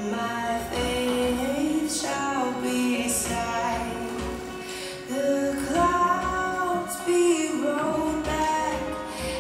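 A song: a female voice singing held, gliding notes over instrumental backing.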